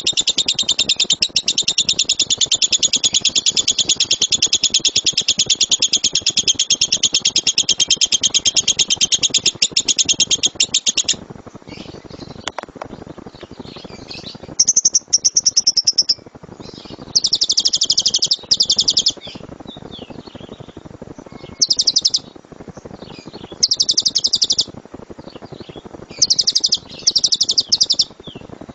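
Lovebird giving its rapid, high-pitched chattering trill, the 'tembakan' call, unbroken for about eleven seconds. After a short pause it comes back in short bursts of a second or so, separated by gaps.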